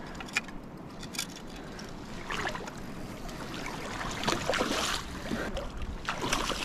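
Water splashing as a hooked coho salmon thrashes and swirls at the surface, irregular splashes growing louder from about two seconds in.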